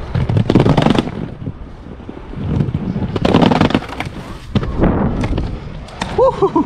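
Inline skates riding down a flight of about six concrete stairs: rough wheel rumble and clattering knocks as the wheels and frames strike the stair edges, loudest near the start and again about three seconds in, with wind on the microphone.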